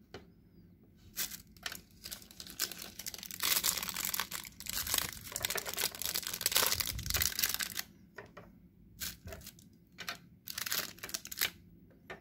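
Clear plastic accessory bags crinkling and rustling as they are handled. It comes in short crackles at first, turns dense and continuous through the middle, then breaks into short scattered crinkles near the end.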